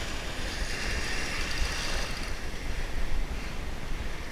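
Wind buffeting the microphone over small surf waves washing up on the beach: a steady rush of noise with a low rumble.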